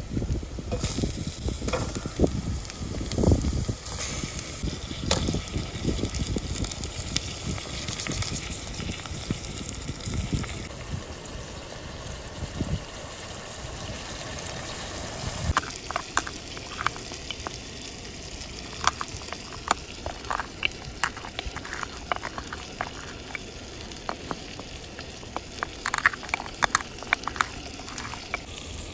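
Lamb shanks sizzling as they are lowered into chopped red onions frying in oil in a copper pot, with heavy knocks in the first few seconds as the pieces go in. The frying hiss carries on, and in the second half sharp clicks and cracks come as black peppercorns are crushed with a wooden pestle in a wooden mortar.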